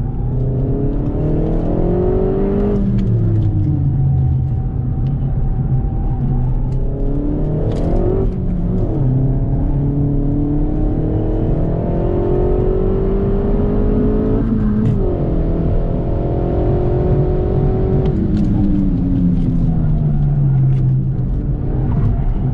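Renault Mégane RS Trophy's turbocharged four-cylinder engine, heard from inside the cabin, pulling hard on track. Its pitch climbs, drops sharply at gear changes about three and fifteen seconds in, then falls away as the car slows near the end.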